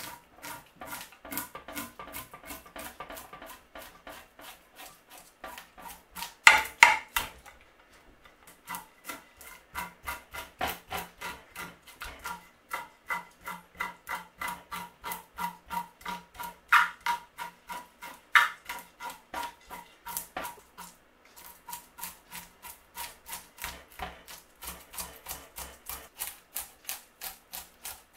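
Back of a kitchen knife scraped in quick repeated strokes along a sea bass's skin, rasping the scales off, about three strokes a second with a few short pauses and some louder strokes.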